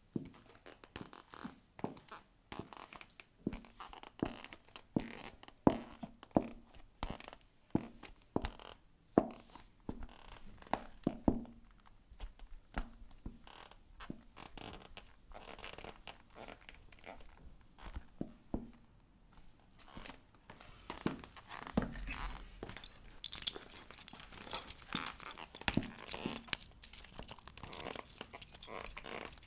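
High-heel footsteps click on a hard floor at a steady walking pace, with soft creaks of leather. About two-thirds of the way in the steps stop, and a bunch of metal keys jingles at a door lock.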